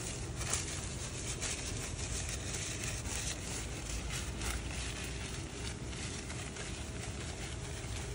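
Light polyester tent fabric rustling and crinkling in short bursts as a pop-up play tent's roof flap is handled, over a steady low outdoor rumble.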